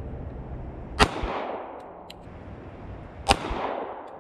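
Two shots from a compact semi-automatic pistol, about two and a half seconds apart, each followed by a decaying echo off the woods.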